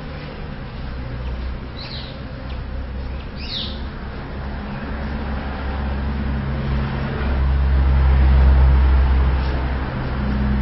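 A motor vehicle's engine running nearby as a low, steady hum that grows louder to its peak about eight seconds in, then eases off. Short bird chirps come twice in the first four seconds.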